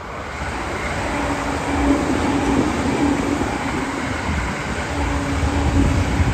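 E657-series electric limited-express train running past at speed: a rumble of wheels on rail with a steady hum rising and falling as the cars go by. It builds over the first second, then stays loud throughout.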